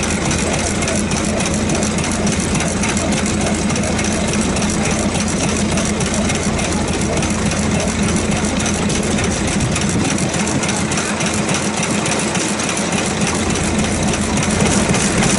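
Shikoku 3-horsepower vintage stationary engine running steadily, a fast even run of firing beats and mechanical clatter.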